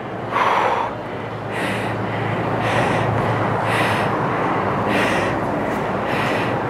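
A woman breathing hard through resistance-band squats, a forceful exhale about once a second in time with each rep.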